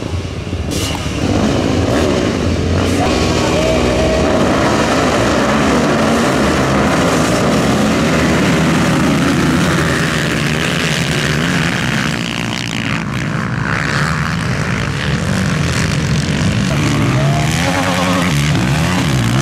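A pack of racing ATVs accelerating together off the start, their engine notes climbing, then running on loud and steady as the field pulls away.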